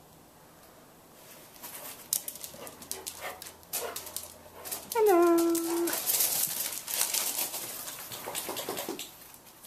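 Two otterhounds scuffling and rustling in play, with one dog giving a single whine about halfway through that drops slightly and then holds its pitch for nearly a second.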